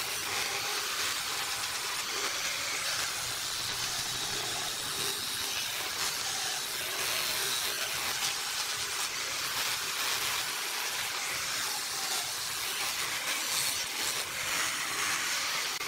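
Angle grinder with a sanding drum attachment running steadily while its abrasive sleeve sands the wooden base of a vase: a continuous hiss of motor and abrasive on wood.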